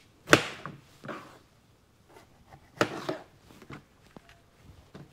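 Chef's knife slicing through a green bell pepper and knocking on a plastic cutting board: a few irregular sharp knocks, the loudest just after the start, a close pair near the middle, then lighter taps.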